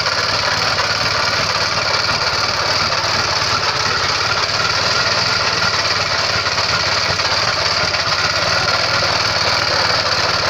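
Petrol tamping rammer (jumping jack compactor) running and pounding the ground, a steady fast engine sound with no let-up.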